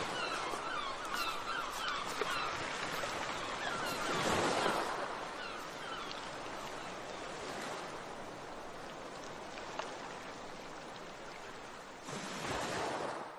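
Ocean surf on a background sound track: a steady rushing that swells as waves break about four and a half and twelve and a half seconds in, with short bird calls over it in the first few seconds.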